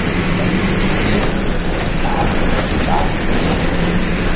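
Steady engine hum and road noise of a city bus under way, heard from the driver's seat inside the bus.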